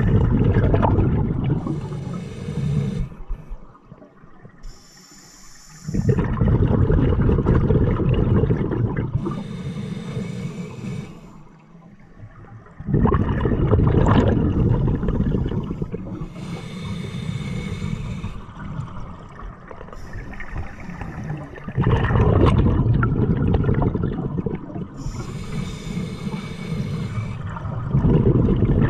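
A scuba diver breathing through a regulator, heard underwater: long spells of rumbling exhaled bubbles every six to nine seconds, with a thin hiss from the regulator on each breath in between.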